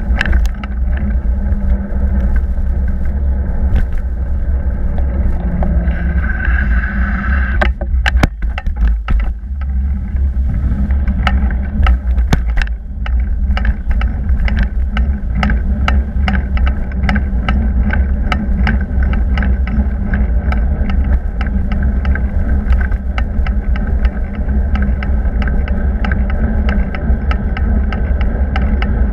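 Bicycle riding over tarmac heard through a handlebar-mounted camera: a loud, steady low rumble of wind and road vibration, with frequent clicks and rattles from bumps in the road surface.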